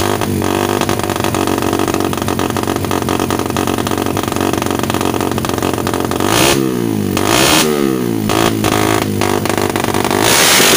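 Stock Suzuki Satria FU 150's single-cylinder four-stroke engine breathing through an aftermarket RCB Purba exhaust, revved by hand on a stand. It runs steadily at low revs, then is blipped several times in the second half, the revs rising and falling back each time, and climbs high again near the end.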